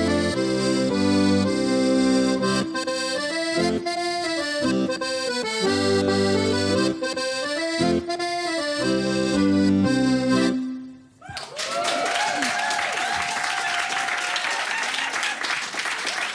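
A live folk instrumental played on sustained chords over a moving bass stops about ten and a half seconds in. The audience then applauds and cheers.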